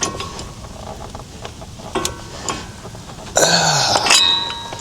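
Light clicks of tools on metal, then about three and a half seconds in a man's short, loud grunt of effort while straining on a stuck, rusted fastener. A metal tool rings briefly near the end.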